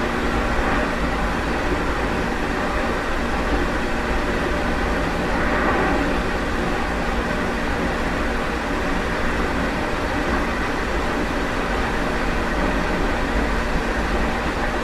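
Meitetsu 1030 series limited-express electric train running, heard from the deck (vestibule), on running gear reused from the 7500 series Panorama Car: a steady rumble of wheels and running gear with a faint steady whine.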